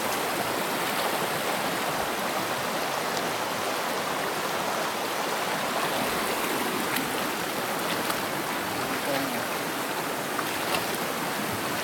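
Stream water rushing steadily over rocks, with a few faint clicks.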